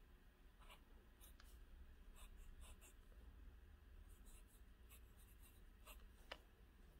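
Faint scratching of a fountain pen nib on paper as letters are written: short, quick strokes at an uneven pace, with one slightly sharper tick near the end.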